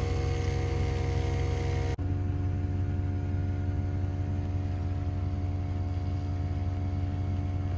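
Portable 12-volt air compressor running with a steady hum, briefly cut off about two seconds in before carrying on.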